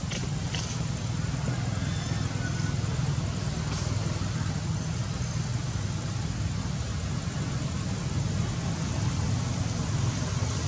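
Steady low rumble with an even hiss above it, outdoor background noise with a few faint ticks.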